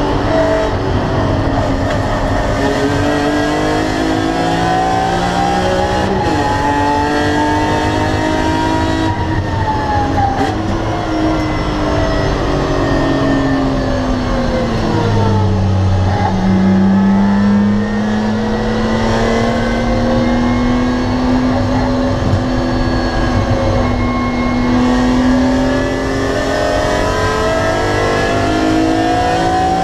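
BMW E46 M3 CSL's 3.2-litre straight-six with its carbon intake airbox, heard from inside the cabin under hard acceleration. The revs climb and drop sharply with upshifts about 6 and 10 seconds in, dip around the middle, then rise slowly and steadily in a high gear for the rest of the run.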